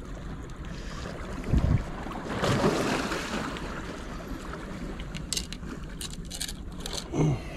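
Wind blowing across the microphone with water lapping against shoreline rocks, a dull thump about a second and a half in and a louder gust soon after. Near the end come a run of short clicks and rustles from handling the rod and reel.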